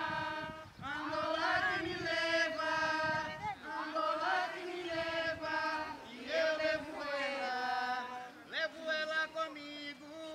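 Voices singing a capoeira song as a chant, in long held notes that slide between pitches.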